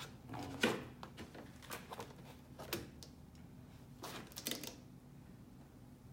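Handling noise from sheet music being settled on a digital piano's music stand: paper rustles and a handful of short clicks and knocks, with no notes played.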